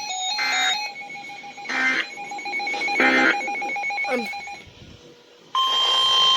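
Emergency alert tones sounding back to back: a steady, fast-pulsing electronic beep broken by three short bursts of static-like noise and a brief falling glide. After a short lull, a new alert starts about five and a half seconds in, with a steady tone over pulsing beeps.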